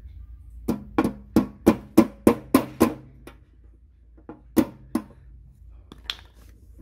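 A hammer tapping a small nail into the underside of a wooden sewing-machine table: a run of eight quick strikes about three a second, then three more after a short pause, and one last tap near the end.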